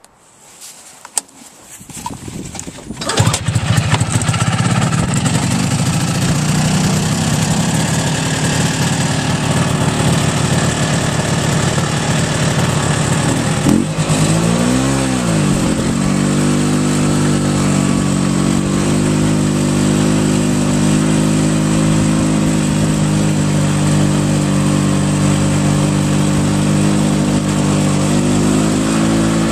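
A 1988 Yamaha Bravo snowmobile's single-cylinder two-stroke engine being pull-started, catching about three seconds in and running steadily. About halfway through it revs up and back down once, then runs at a steady pitch while the sled is under way.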